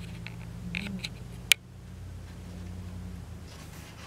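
Hands handling a picture book: a few light taps, then one sharp click about a second and a half in, and a faint rustle near the end as a hand reaches for the page. A steady low electrical hum runs underneath.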